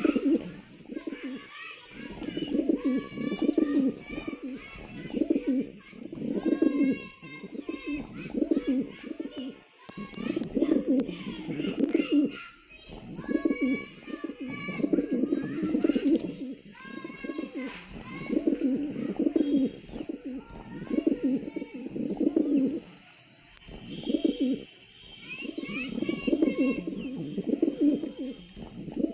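Pigeons cooing over and over, low coos coming about once every second or two, with higher chirping calls mixed in.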